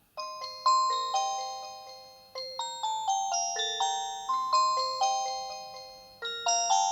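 Nokia 215 4G ringtone playing from the phone's speaker: a chiming melody of bell-like notes, each fading away, starting just after a short gap, with a brief pause about two seconds in.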